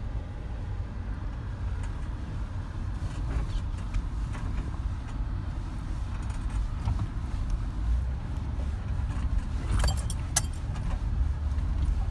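Jeep crawling over a rough, rocky dirt trail, heard from inside the cab: a steady low rumble of engine and tyres. About ten seconds in, a few sharp jangling rattles, like keys or loose metal bits shaken by the bumps.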